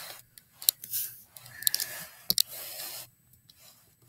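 Handling noise as a book and its packaging are moved about: short rustles and scrapes with a few sharp clicks and taps.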